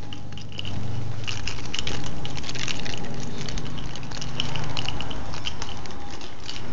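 Footsteps pattering on a hard walkway as a series of irregular light clicks, over a steady low rumble.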